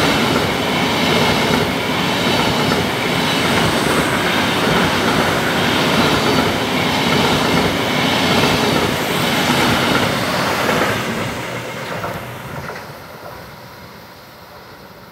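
Train passing close by on the coastal line: a loud, even rail noise for about eleven seconds that then dies away as the train moves off.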